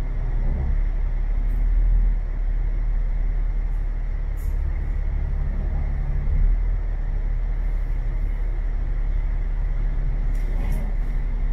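A bus's diesel engine running with a steady low drone, with a couple of faint clicks near the middle and the end.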